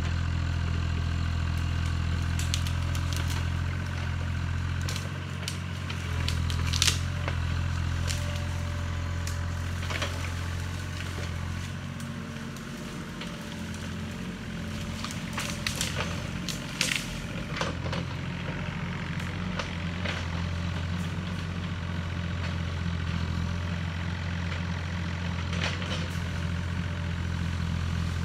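Yanmar ViO35 mini excavator's three-cylinder diesel engine running steadily, its note easing for a few seconds in the middle. Several sharp cracks and snaps of brush and branches breaking cut across it as the arm pulls out undergrowth.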